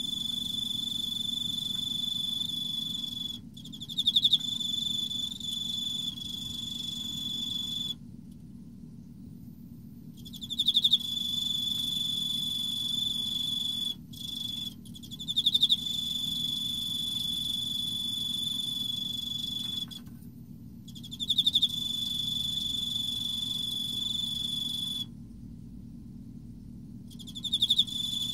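Male Emma field cricket (Teleogryllus emma) singing: about five phrases, each starting with a few loud pulsed chirps and running into a long, steady, high trill of several seconds, with short pauses between phrases. A low steady hum runs underneath.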